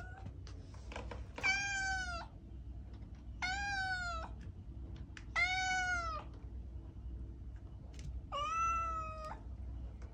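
Domestic cat meowing four times, about two seconds apart, each meow under a second long, rising a little in pitch and then falling.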